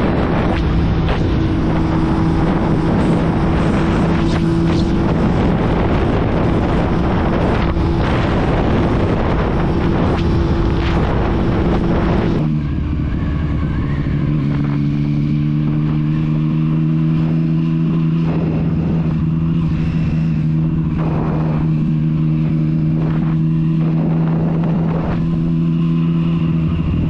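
Motorcycle riding at speed, a dense rush of wind and road noise over a steady engine drone. About twelve seconds in the rush drops away suddenly and the engine runs on alone with a steady, clearer note at town speed.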